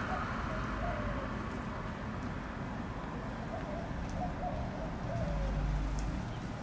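A bird calling with low, wavering notes in two spells, one just after the start and another past the middle, over steady outdoor background noise.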